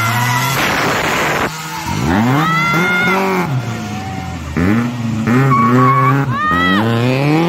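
Rally car engine revving hard, its pitch climbing and dropping several times, with short high tyre squeals as the car turns on wet tarmac.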